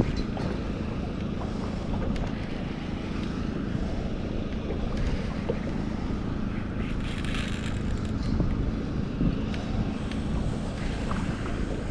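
Wind rumbling on the microphone over water lapping around a small boat.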